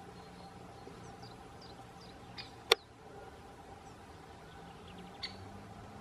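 One sharp knock a little before halfway through, with a fainter tick just before it and another near the end. Faint thin chirps of small birds sound in the background.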